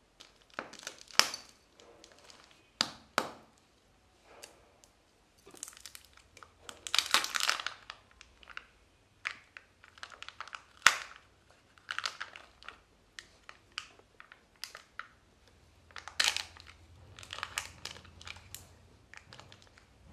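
Kinder Joy egg being unwrapped by hand: the foil wrapper crinkles and tears in irregular bursts, with sharp clicks and snaps from the plastic egg, the loudest about eleven seconds in. Near the end the foil seal is peeled off the chocolate half.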